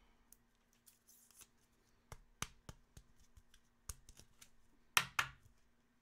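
A Topps Chrome trading card being handled and slid into a rigid clear plastic toploader: scattered light plastic clicks and taps, with two sharper clicks about five seconds in. A faint steady hum runs underneath.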